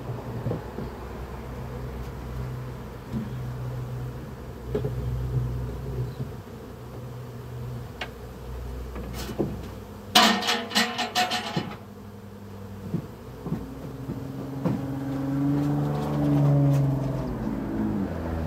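Honey bees buzzing in the air around open wooden hives, with a few scattered knocks of wooden hive boxes being handled. The buzz swells loudly for about two seconds midway, and a droning tone rises and falls near the end.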